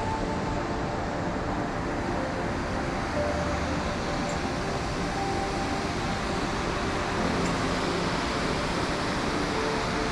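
Steady rush of the river running through the gorge, with faint background music of soft held notes underneath.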